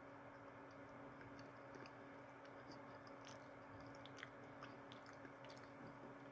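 Faint chewing of a soft, chewy Chips Ahoy caramel cookie: small scattered wet mouth clicks that come more often from about three seconds in, over a faint steady hum.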